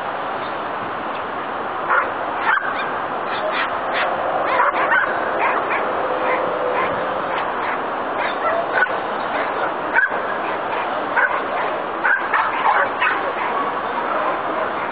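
A Bouvier des Flandres barking repeatedly at an uneven pace, starting about two seconds in, over a steady background hiss.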